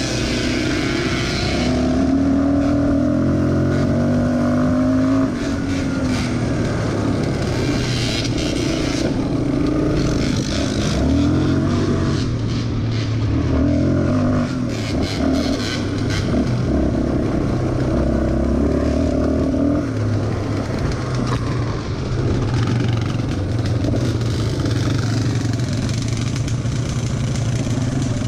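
ATV engine running under changing throttle while riding a dirt trail, its pitch rising and falling again and again, with scattered knocks and rattles over rough ground.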